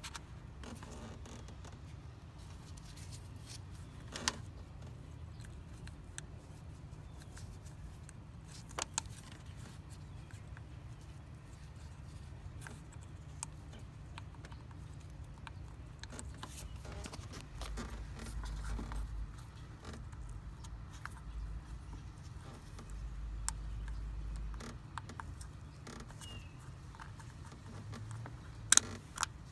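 Faint clicks and scrapes of a plastic cam position sensor and its wiring connector being worked by hand into place on the engine, a few sharp clicks standing out now and then and a cluster near the end, over a steady low hum with some low rumbles around the middle.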